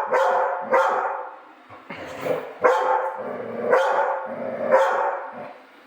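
A dog barking repeatedly, about six loud barks with short pauses between them.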